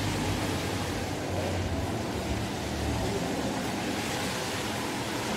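Steady background noise of a large indoor shopping mall: an even low rumble under a broad hiss.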